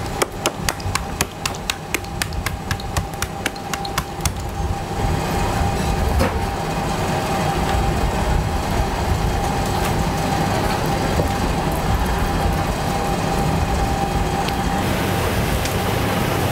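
Rapid tapping, about five strokes a second, of a needle pricker jabbed over fresh sausage links on a steel table to pierce the casings and let trapped air out. It stops about four seconds in, leaving a steady hum with a faint whine.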